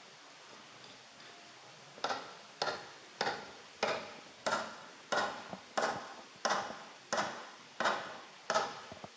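A steady run of about eleven sharp knocks, starting about two seconds in, roughly three every two seconds, each ringing out briefly before the next.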